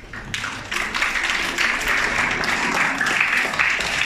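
An audience applauding: dense clapping that starts just after the beginning and quickly fills out to a steady level.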